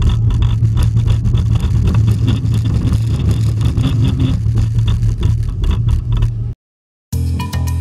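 Hybrid wooden-and-steel roller coaster train rolling over its track, a loud steady low rumble with quick rattles and clatter throughout. It cuts off suddenly about six and a half seconds in, and after a short gap, music with guitar and drums starts.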